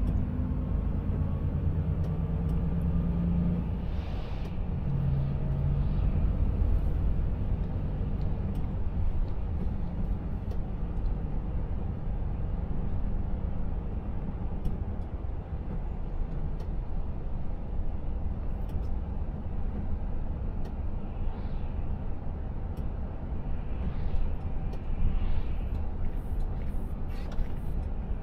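Cab interior sound of a Volvo FH 500 Aero truck driving on a country road: a steady low drone of the diesel engine and tyres. Engine tones stand out in the first few seconds as the truck picks up speed.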